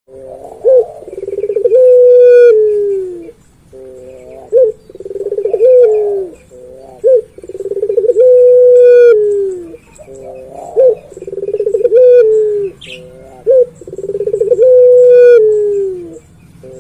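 Male puter pelung, a long-cooing Indonesian turtle dove, cooing over and over: each call is a few short pulsed notes leading into a long held coo that sags in pitch at its end, repeated about every three seconds.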